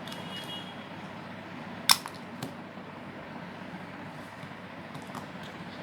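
Small plastic clicks from handling a tiny BM10 phone while its battery is taken out: one sharp click about two seconds in, then a few faint ticks, over a steady background hiss.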